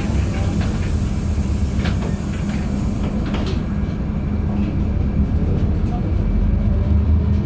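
Inside a LiAZ-5292.71 gas-powered city bus under way: a steady low engine drone with a few rattles and clicks, the hum growing stronger near the end.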